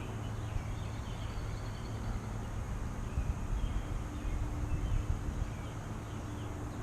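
Steady outdoor background noise with faint, scattered bird chirps, and a low hum coming in about four seconds in.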